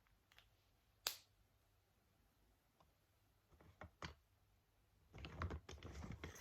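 Writing sounds: a sharp tap about a second in, two lighter taps around four seconds, then just over a second of quick scratching and tapping near the end.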